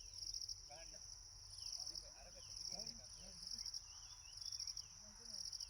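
Chorus of insects trilling high and shrill, swelling and fading roughly once a second, with faint voices in the distance.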